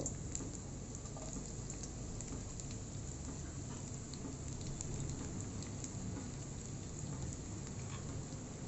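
Sliced onions frying in hot mustard oil in a non-stick frying pan: a steady sizzle with small scattered crackles.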